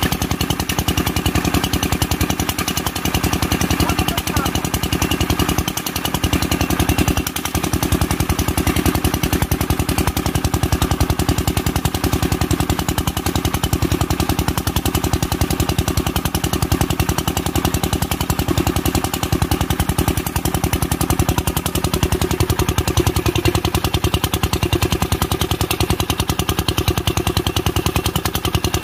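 Single-cylinder Kirloskar diesel engine running steadily, its exhaust beats rapid and even.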